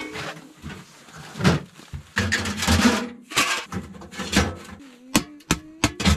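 A sheet-metal wood stove and its stovepipe sections knocking and scraping as they are set down and fitted together, with several sharp metallic clicks near the end.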